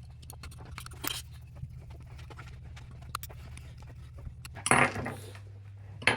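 Light clicks and rattles of small parts as fasteners are taken off an RC crawler truck, over a steady low hum, with a louder burst of handling noise about five seconds in.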